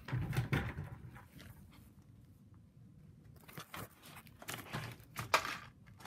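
Rustling and knocking as objects are moved about and handled, in bursts: one at the start, then a louder run from about three and a half to five and a half seconds in.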